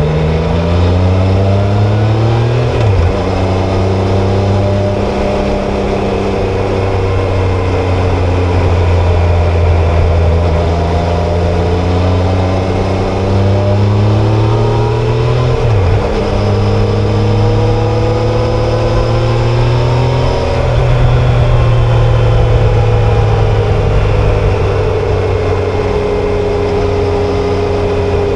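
Triumph Tiger Sport 660's inline-three engine and exhaust under way through the gears. The revs climb, drop sharply at an upshift about three seconds in, climb again to a second upshift around the middle, then rise once more and ease off gradually as the bike slows over the last third.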